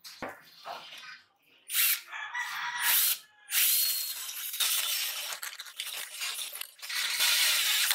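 Cordless drill turning a small hole saw cutter into the steel housing of a refrigerator compressor. It makes two short bursts, then cuts steadily for the last four seconds or so, with a few light handling knocks before the drilling starts.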